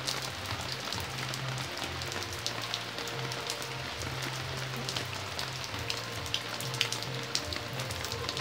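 Steady rain falling on a garden, with many individual drops ticking sharply on leaves and stone paving.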